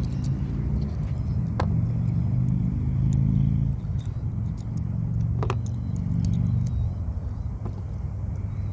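Steady low hum of an engine running, with a few sharp clicks and taps from a scope mount being handled and fitted onto an air rifle, about one and a half and five and a half seconds in.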